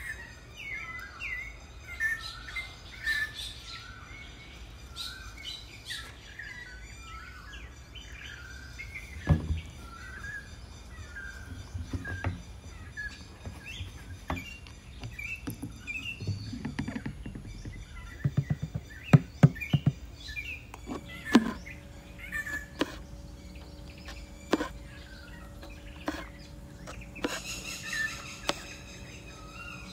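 Small birds chirping and twittering over and over. Occasional sharp taps and knocks come in between, with a quick cluster of them about two-thirds of the way through.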